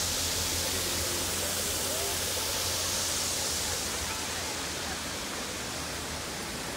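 A steady, even hiss with faint voices underneath.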